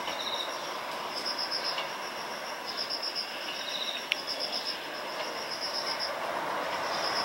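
Insects chirping in repeated bursts over the steady running noise of an Ohmi Railway 800 series electric train moving away along the track, with one sharp click about four seconds in.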